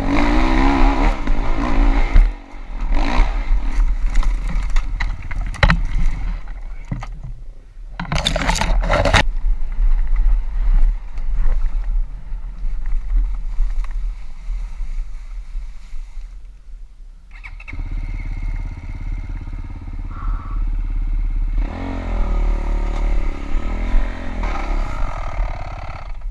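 Avantis 300 Pro motorcycle's single-cylinder 177MM engine running and revving up and down, with stretches of rough noise and a few sharp loud bursts in the middle. The engine has a knock that the owner says developed around 110 engine hours; it rattles.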